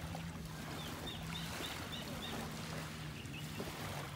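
Small waves lapping in the beach shallows under a steady low motor hum, with a quick run of about six high bird chirps between one and two seconds in.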